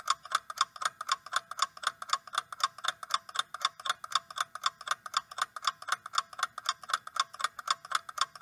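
Ticking-clock countdown sound effect: rapid, evenly spaced ticks marking a ten-second answer timer.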